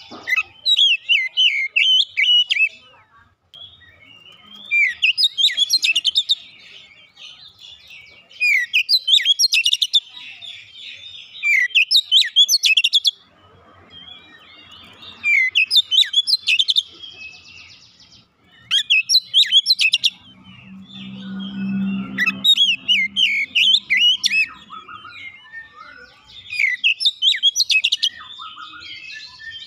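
Caged Oriental magpie-robin (kacer) singing: bursts of quick, varied whistles and chattering notes, each a second or two long, repeated every few seconds with short pauses between. A low hum sounds under the song for a few seconds past the middle.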